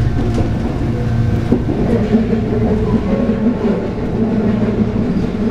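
Shizuoka Railway 1000 series electric train running along the line, heard from inside the front of the car: a steady rumble of wheels on rail with a low hum.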